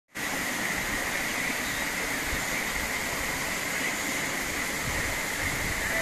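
Waterfall pouring down a rock face onto rocks: a steady, unbroken rush of falling water, with a faint steady high tone running through it.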